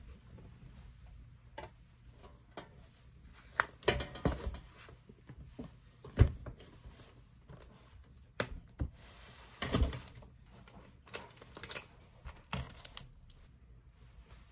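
Irregularly spaced light clicks and knocks, a dozen or so, with quiet between them, like things being handled and set down.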